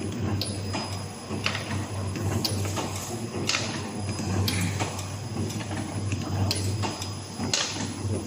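Automatic two-line dim sum (siomay) forming machine running: a steady motor hum with a sharp mechanical clack about once a second as it cycles.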